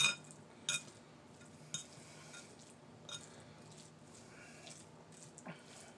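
Metal fork clinking and scraping against a bowl while stirring ramen noodles: a few light, spaced-out clinks.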